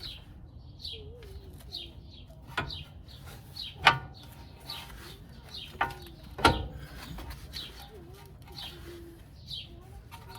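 Birds chirping over and over, each chirp a short high falling note, with low wavering coos beneath. A few sharp knocks break in, the loudest about four and six and a half seconds in.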